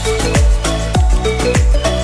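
Background music with a steady kick-drum beat, about two and a half beats a second, under short repeating melodic notes.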